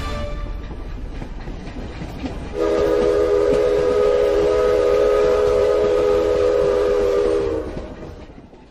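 Train sound effect: a train rumbling and clattering along, then a multi-note train whistle sounding one long chord for about five seconds before fading away.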